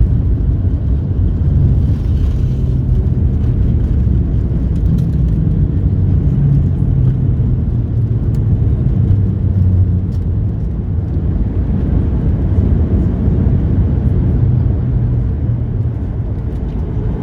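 Jet airliner heard from inside the cabin on landing: a loud, steady, low rumble of engines and airframe, with no sudden events.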